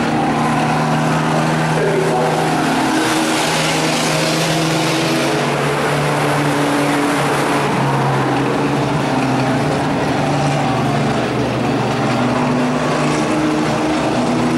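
Several pickup truck race engines running on track at once, their pitches stepping up and down as the trucks accelerate and lift through the laps.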